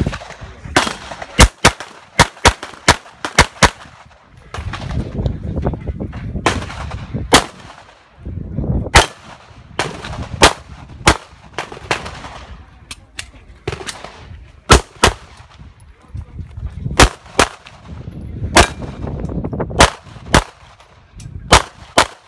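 Caracal C 9mm pistol firing a stage string: about two dozen sharp shots, many in quick pairs, in groups separated by pauses of one to two seconds.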